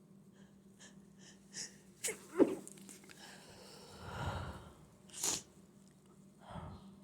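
A person sneezing. A few short breaths build up, then comes a sharp sneeze about two and a half seconds in, followed by more breathy bursts.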